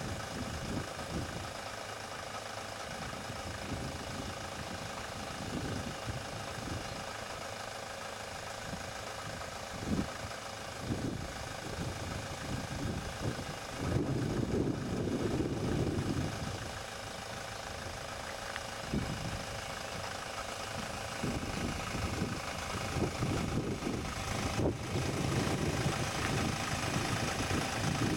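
Ford Transit van's engine running at low speed as the van creeps forward, with uneven low rumbling that comes and goes, strongest about halfway through.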